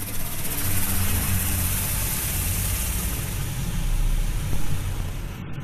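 Automatic car wash heard from inside the car's cabin: water spray hissing against the body and glass over a steady low machine hum. The hiss is strongest in the first few seconds and eases toward the end.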